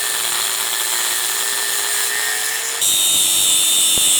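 Electric power tool running steadily as it cuts and shapes an aluminium knife handle. About three seconds in it gets louder, with a high whine coming in.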